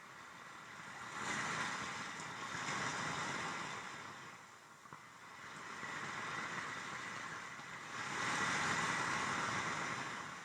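Field recording of sea waves washing over a pebble beach, a hissing wash that swells and recedes in slow surges every few seconds.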